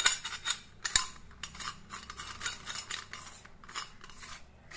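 Metal murukku-style hand press (ribbon pakoda press) being assembled and handled: the steel cylinder, die plate and plunger clink and scrape against each other, with a sharp metallic click about a second in.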